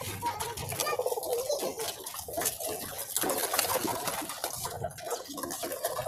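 Racing pigeons cooing in their loft, low wavering coos over scattered clicks and scuffles.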